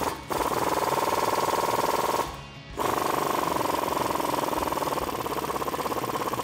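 Impact wrench hammering as it backs out the 18 mm lower shock bolt on a Jeep Wrangler JK's front axle, in two runs with a short pause about two seconds in.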